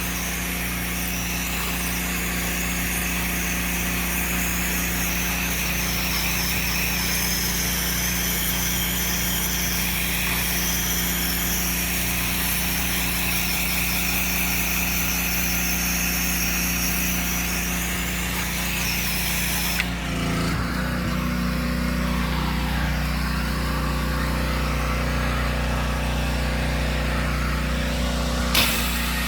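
Soft-washing rig spraying: a hissing spray over a steady machine hum from the pump. The spray cuts off suddenly about twenty seconds in while the hum runs on, and after a click near the end the spray starts again.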